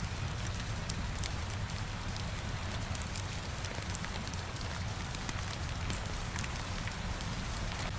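Steady rain falling against a window, mixed with the low rumble of a fireplace, with scattered faint ticks throughout.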